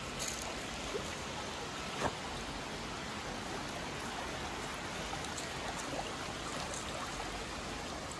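Shallow woodland stream flowing, a steady rush of running water, with a couple of faint knocks about a second and two seconds in.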